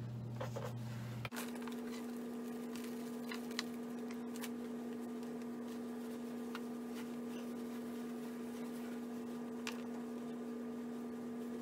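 Faint rustling and scattered light ticks of hands working borax powder into a rabbit hide over a plastic tray, over a low steady electrical hum. The hum drops out briefly about a second in and returns at a higher pitch.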